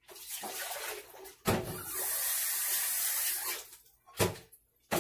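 Water poured and splashing while sliced potatoes are rinsed, loudest from about a second and a half in for about two seconds. Two short knocks follow near the end.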